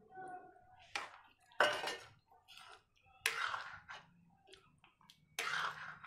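Metal spoon scraping against a steel kadhai while stirring potato pieces into thick tomato gravy, in about four short strokes with pauses between.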